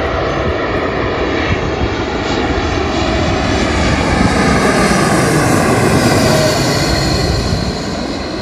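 Twin-engine jet airliner on final approach passing low overhead. The engine roar swells to its loudest about halfway through, then starts to fade as it passes, its whine dropping in pitch.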